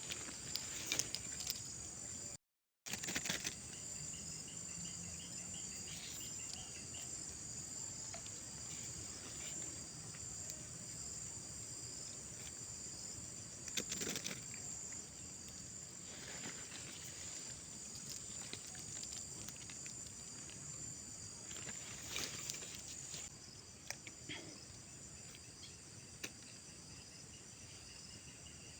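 Steady high-pitched chirring of insects, with a few short clicks and rustles, and a brief dropout to silence near the start.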